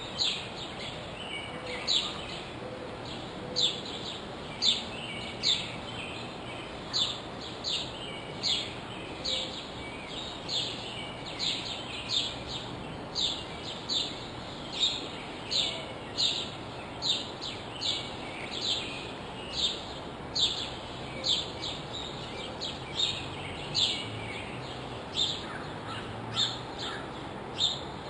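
A bird repeating the same short, sharp sweeping call over and over, a little more than once a second, over a steady background hiss.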